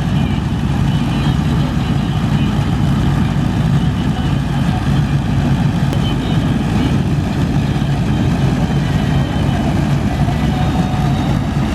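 Tractor-mounted combine harvester running, a loud steady engine drone.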